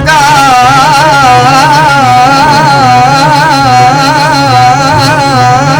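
Qawwali: a singer holds one long, wavering, ornamented note over steady low accompaniment with a light rhythmic beat.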